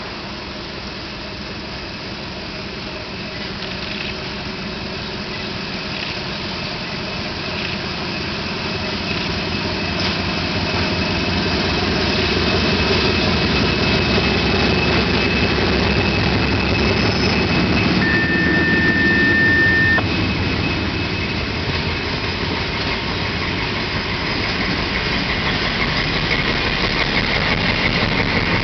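Diesel locomotive engines of a passing train, an SM42 shunting locomotive leading and an SU45 following, running and growing louder as the train comes up and passes close below, with a second rise near the end as the other locomotive arrives. A single steady high tone sounds for about two seconds partway through.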